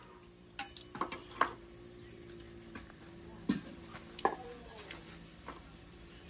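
Chopsticks and spoons clinking and scraping against stainless-steel bowls and a steel pot during a meal, in scattered knocks. One clink a little past four seconds in leaves a short metallic ring.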